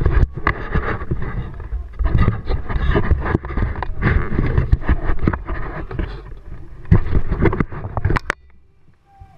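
Loud rumbling, splashing water noise against an inflatable kayak's hull close to the camera, with many knocks and bumps. It cuts off suddenly about eight seconds in.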